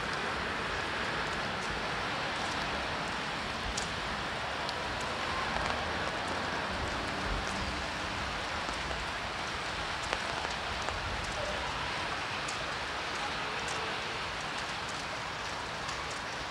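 Steady rain falling: an even hiss with a few sharper drip ticks scattered through it.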